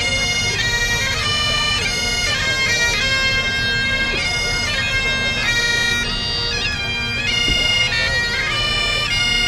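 Bagpipes playing a slow melody over their steady drones.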